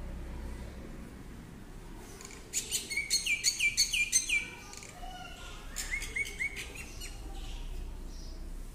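A bird calling: a quick run of short, falling chirps about two and a half seconds in, about five a second for two seconds, then a shorter run of four or so a little later.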